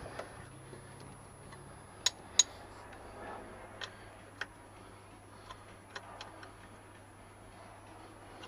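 A few sharp metal clicks and taps, two loud ones close together about two seconds in, then fainter single ticks every second or so: hand tools working on a Suzuki Hayabusa's rear chain adjusters.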